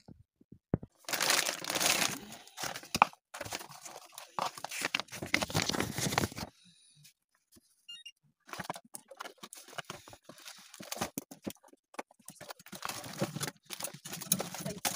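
Plastic, foil and paper packaging of a military ration pack crinkling and rustling as it is unpacked by hand, in irregular bursts with a short lull about halfway.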